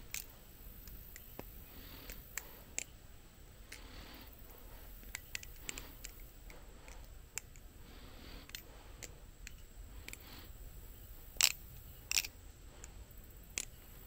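Balisong (butterfly knife) trainer being flipped: irregular sharp clicks and clacks as the handles swing and strike each other, with a few louder clacks near the end.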